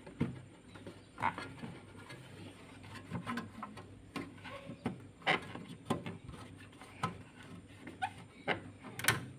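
Light clicks and knocks at irregular intervals, about a dozen, with the sharpest one near the end, like small objects being handled and set down.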